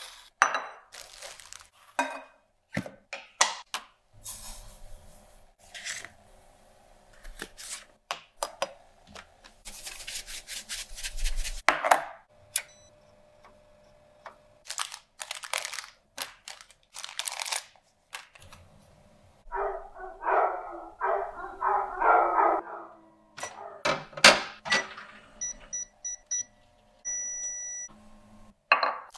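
Kitchen handling sounds: a string of clicks, knocks and crinkling plastic as food and packaging are handled on a counter.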